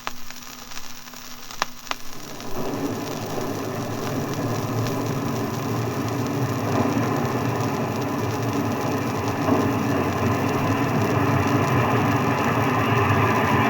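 A train running into a station platform: a dense rumble and rattle that begins about two and a half seconds in and grows steadily louder, after two sharp clicks, over the hiss of an old disc recording.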